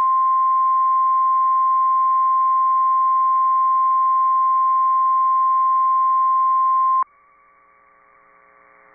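NOAA Weather Radio warning alarm tone: a single steady 1050 Hz tone that cuts off abruptly about seven seconds in, leaving faint radio hum. It is the alert that comes before a warning message, here a severe thunderstorm warning.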